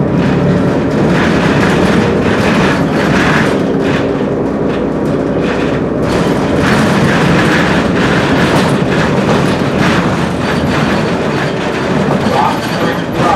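Cabin noise aboard a 2016 Gillig Advantage low-floor diesel transit bus under way: its Cummins ISL9 engine running beneath steady road noise, with frequent rattles and knocks from the body.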